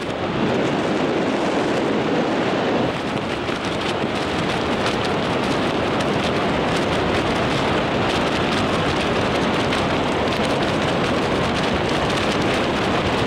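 Wind rushing over the microphone of a hand-held camera during a tandem parachute descent: a steady, dense noise, heavier for about the first three seconds.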